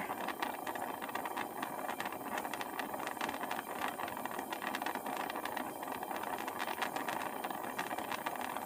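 Gas torch flame burning steadily under a wire mesh screen, a continuous even hiss, as it fires vitreous enamel on a copper piece from below.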